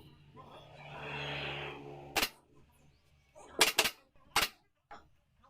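Pneumatic upholstery staple gun firing about five sharp shots: one, then a quick run of three, then one more, after a soft rustling hiss.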